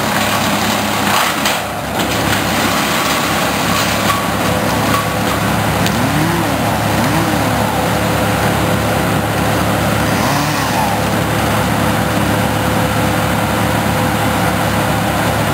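Wood chipper running steadily and loud while cut Norway spruce trees are fed into it for chipping.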